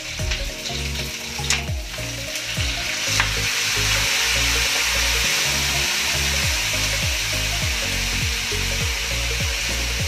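Pork hocks sizzling in hot oil in a steel wok as soy sauce is poured in. The sizzle grows louder about three seconds in and stays up, with a couple of sharp clicks in the first few seconds.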